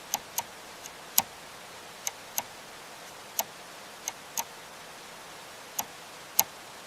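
Raindrops tapping: about a dozen sharp, irregularly spaced ticks over a faint hiss.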